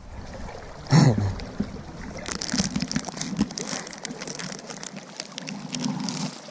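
River water running with wind on the microphone. There is a short shout about a second in, and a crackling, splashy noise from about two seconds in.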